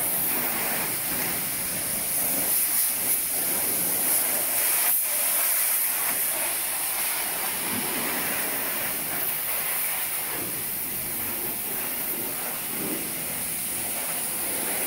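Pressure washer spraying a jet of water onto a bicycle frame: a steady spray with no break, and a brief click about five seconds in.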